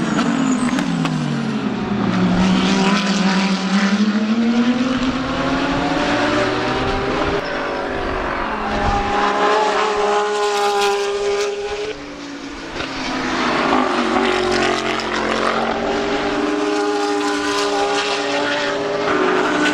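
GT3 race cars passing at speed one after another, their engine notes falling in pitch as they go by and climbing again as they accelerate, several cars overlapping. The sound dips briefly about twelve seconds in before the next cars arrive.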